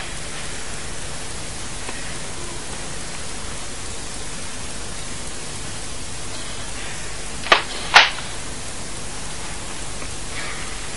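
Steady hiss of an old film soundtrack, with two short sharp sounds about half a second apart some seven and a half seconds in.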